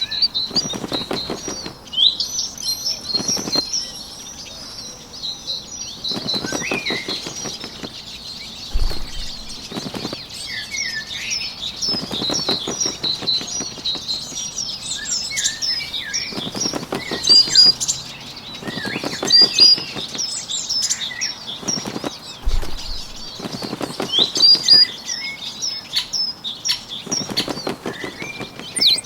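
Small birds chirping and twittering continuously, with a short burst of fluttering wing flaps every two to four seconds.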